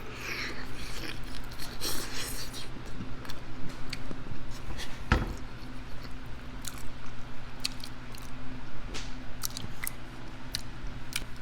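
Close-miked chewing and wet mouth smacking while eating a saucy hot wing with mac and cheese, with many short clicks and one louder thump about five seconds in.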